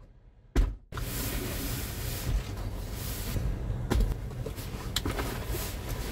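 Home-made pull-out bed platform in a camper van being slid and handled: a sharp knock about half a second in, then a steady rushing noise with two more sharp knocks around four and five seconds in.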